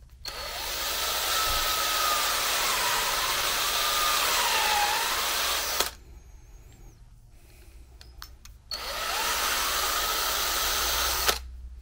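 Makita cordless drill spinning a step drill bit to open out the hole in a rubber grommet. It runs twice, for about six seconds and then about three, with its motor pitch dipping now and then under load.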